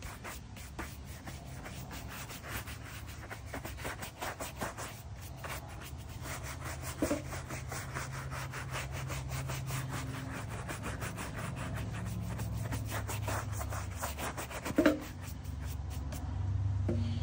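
Bristle shoe brush scrubbing polish into a leather boot in quick back-and-forth strokes, several a second, buffing rough leather back to a shine.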